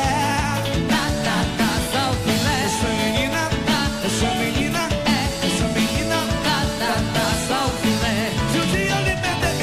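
Live forró band music with a steady dance beat, with a melody line over bass and drums.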